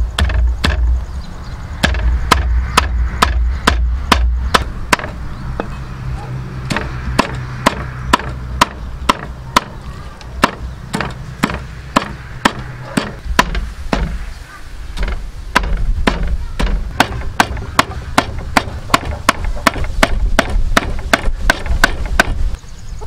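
Meat cleaver chopping raw pork into mince on a thick round wooden chopping block: a steady run of sharp knocks, about three a second, over a low rumble.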